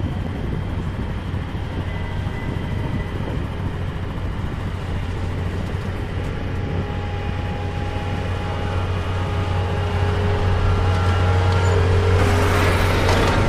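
Heavy diesel engine running with a steady low rumble, getting louder over the last few seconds.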